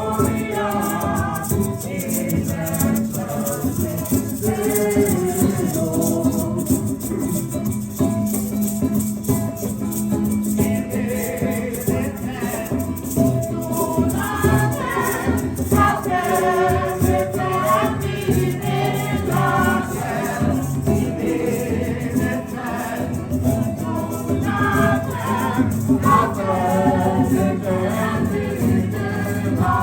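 Music with several voices singing together over steady maraca shaking.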